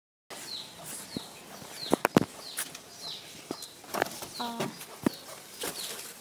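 A bird's short falling chirps repeating about twice a second, over sharp knocks and thumps as heavy jackfruits are shifted in a car's boot, the loudest pair about two seconds in.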